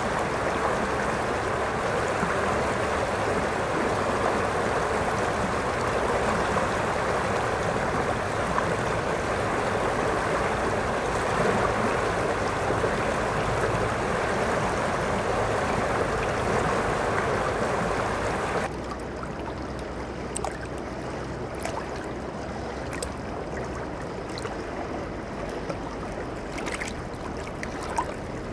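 River water rushing steadily over a shallow riffle. About two-thirds through it cuts suddenly to a quieter, closer sound of water lapping and trickling around rocks at the river's edge, with small splashes and ticks.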